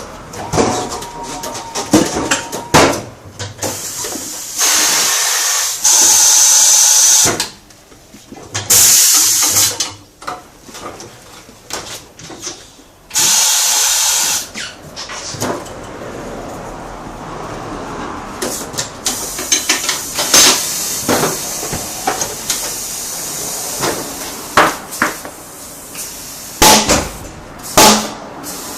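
Three loud blasts of compressed air hissing, each lasting one and a half to two and a half seconds, among scattered knocks and clanks of tools and wheel parts.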